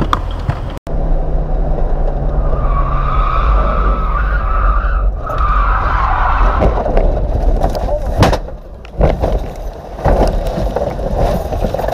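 Car running hard along a road with tires squealing for several seconds, then a sharp impact about eight seconds in and more knocks and scraping as it ploughs off the road into a dirt bank.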